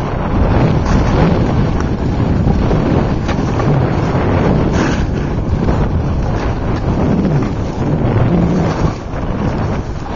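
Loud wind buffeting the microphone of a camera carried by a skier moving fast downhill, with skis hissing and scraping over snow.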